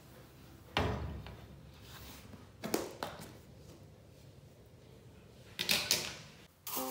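A plastic food container full of rice set down on the stove top with a thump about a second in, then its snap-on plastic lid unclipped and lifted off, with plastic clacks around three seconds and again near six seconds.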